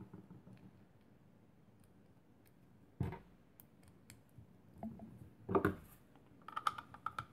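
Hard plastic holster parts and small metal hardware being handled and fitted together: a sharp knock about three seconds in, another a little after five seconds, and a quick run of light clicks near the end as an Allen key works the mounting screw.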